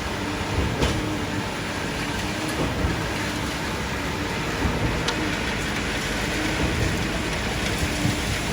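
Steady din of a concrete pour: a continuous rushing noise with a faint intermittent hum of machinery and a few sharp clicks.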